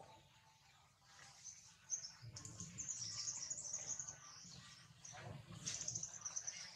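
Faint bird chirping and twittering that starts about two seconds in, over a low rumble.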